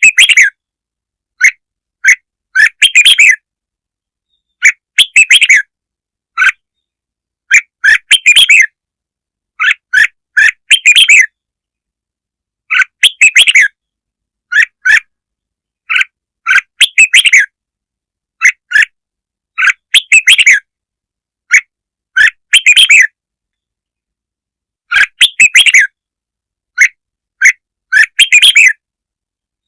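Red-whiskered bulbul singing: short bursts of quick, chirpy notes repeated every second or two, with dead silence between phrases, as in a recording played to lure and excite bulbuls.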